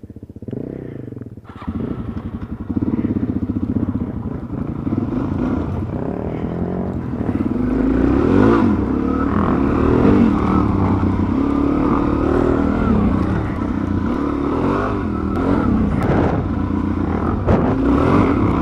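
Dual-sport motorcycle engine running under way, its revs rising and falling, with scattered knocks and clatter.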